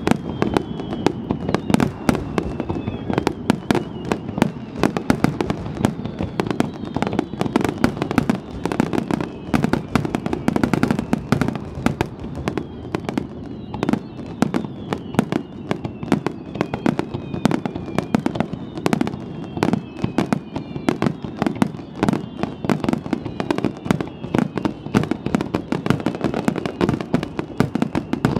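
Starmine fireworks barrage: a dense, unbroken run of bangs, several a second, with thin whistles falling in pitch running through it again and again.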